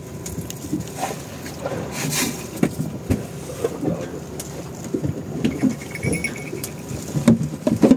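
Irregular knocks and clatter aboard a fiberglass fishing boat over a steady low background hum, with a brief thin high whine about five and a half seconds in.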